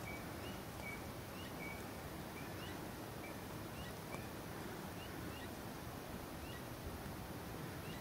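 Faint outdoor ambience with a steady hiss, over which distant animal calls give many short, high chirps at irregular intervals, most rising quickly in pitch.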